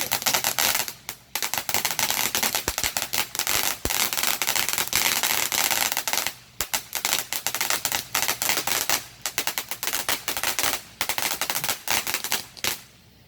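A ground firework crackling off a long run of rapid, sharp pops like a string of firecrackers, with short breaks about one, six and eleven seconds in.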